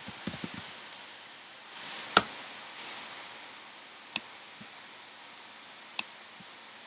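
A few sharp clicks of a computer mouse over a faint steady hiss: a cluster of light clicks near the start, one loud click a little over two seconds in with a brief rustle just before it, and single clicks around four and six seconds in.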